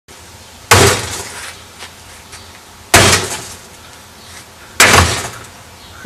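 An axe striking a refrigerator: three heavy blows about two seconds apart, each trailing off over about half a second.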